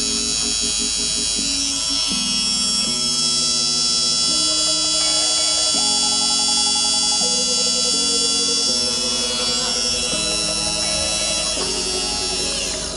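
Deerma MQ810 handheld lint remover's small 7,000 rpm motor running with a steady whine, just switched on by its push button, cutting off near the end. Background music plays over it.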